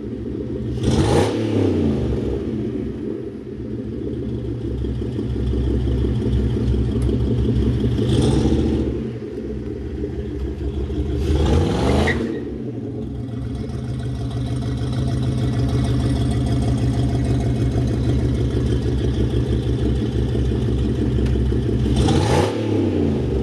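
Pontiac Fiero's swapped-in LS4 5.3-litre V8 idling, revved four times with the car standing still, each rev rising and then falling in pitch, with a steady idle between.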